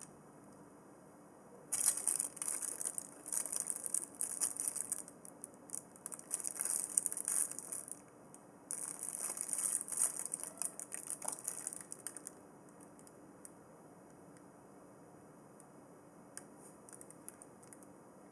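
Cables and plastic plugs rustling and clicking as they are handled and the power lead is plugged into an LCD controller board, in irregular crackly bursts for about ten seconds with a short pause midway, then near silence with a few faint clicks.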